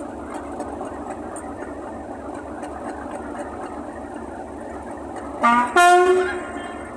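Class 37 diesel locomotive 37421's English Electric V12 engine running steadily. About five and a half seconds in, it sounds its two-tone horn as a horn test: a short low note, then a longer high note.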